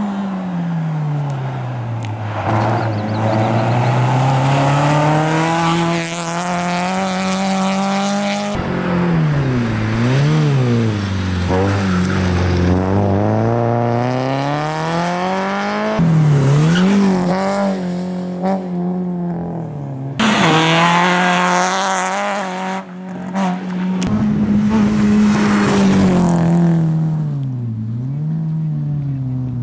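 Renault Clio Sport's four-cylinder engine revving hard, its note rising and falling again and again as the car accelerates and brakes around tight tyre-stack markers. The engine sound breaks off and restarts abruptly several times.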